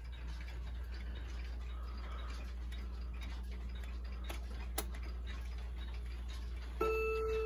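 Howard Miller Sandringham wall clock ticking over a steady low hum, with a few clicks as its minute hand is turned to the quarter hour. Near the end a hammer strikes the newly fitted chime rods and a ringing chime note starts.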